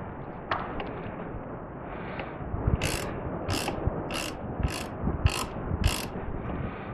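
Ratchet wrench tightening brake caliper bolts: six quick runs of ratchet clicking, evenly spaced a little over half a second apart, starting about three seconds in.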